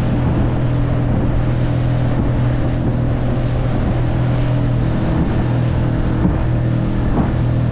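Outboard motor of a small aluminium tinny running steadily under way, a constant low hum, with wind on the microphone and water rushing past the hull. The boat is heavy with water leaking into the hull.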